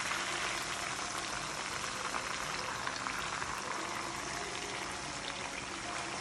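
Hot vegetable oil sizzling steadily around two whole red snappers frying in a skillet.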